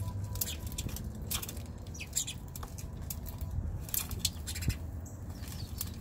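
Birds feeding at a metal seed tray: scattered light, sharp ticks and pecks over a low steady rumble.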